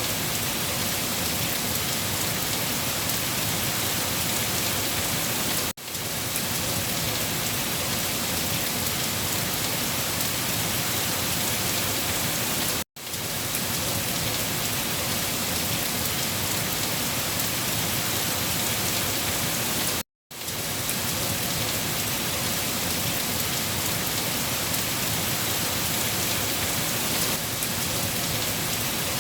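Steady, dense rain falling on a surface, a continuous hiss of drops. It cuts out for a moment three times, about 6, 13 and 20 seconds in, and each time picks up again at once.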